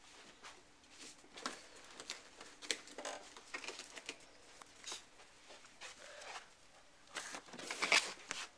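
A Maltese puppy playing with a latex balloon: scattered short scratchy rustles and soft taps as it noses and bumps the balloon about, with a louder cluster of rustling near the end.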